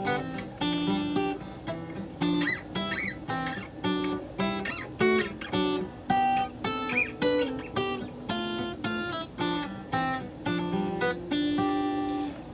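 Acoustic guitar strummed in an instrumental break between sung verses, with a steady rhythm of chords.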